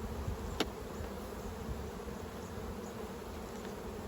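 Honey bees buzzing around open hives in a steady hum, with one sharp click about half a second in.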